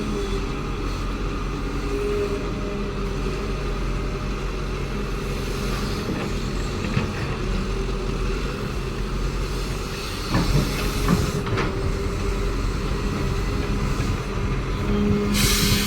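Caterpillar excavator's diesel engine running steadily with a steady hydraulic whine. A few sharp metallic knocks come a little past the middle, and a short hiss near the end.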